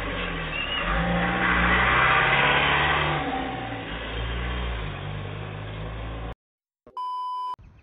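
Truck engine running and revving, shifting up and down in pitch, cutting off suddenly about six seconds in. A short steady electronic beep follows soon after.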